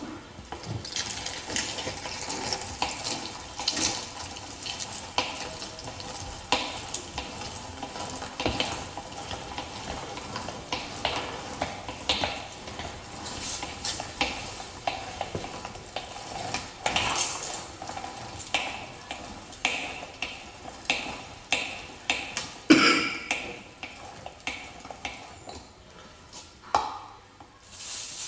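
Hand-cranked manual meat grinder being turned: rhythmic metal scraping and clicking, about one stroke a second, with one louder clunk near the end.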